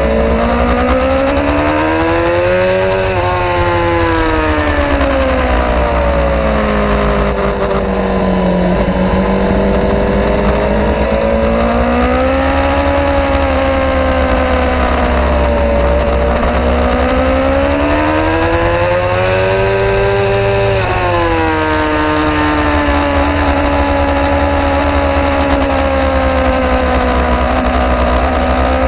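Suzuki GSX-R 750's inline-four engine heard from the rider's seat, rising and falling in pitch as the throttle is opened and closed through corners, with a sharp drop about three-quarters of the way through, over a steady rush of wind.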